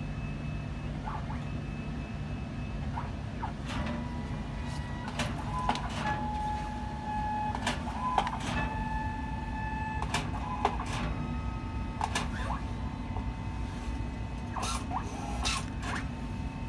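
Photo printer inside a photo vending machine printing a photo: motor whines at several steady pitches that start, stop and step between tones, with frequent clicks, over a steady low hum.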